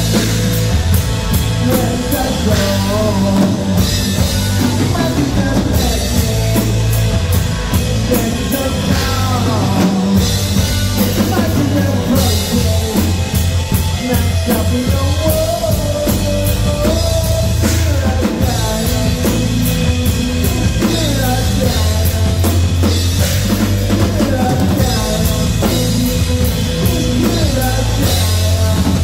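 A live rock band playing loud: drum kit, electric guitar and bass guitar, with a lead singer's voice over the top.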